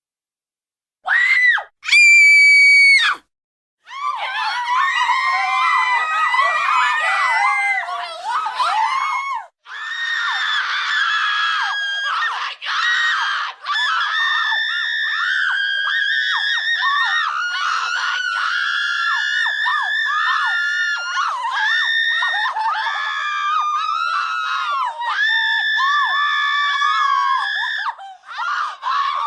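Children screaming in fright: a short scream, then a single high, held scream, then from about four seconds in a group of children screaming together, many high voices overlapping without a break.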